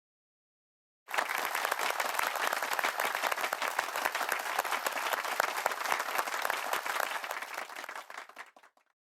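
Applause: many hands clapping, starting about a second in after silence and fading out near the end.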